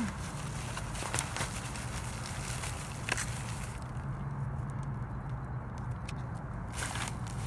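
Scattered knocks and crinkling of trash being handled and shifted while rummaging through a dumpster, over a steady low hum.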